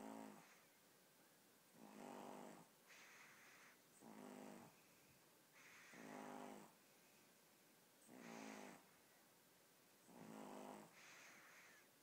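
A 15-week-old puppy snoring softly in deep sleep, with a buzzing snore about every two seconds, six in all. Some snores end in a breathy hiss.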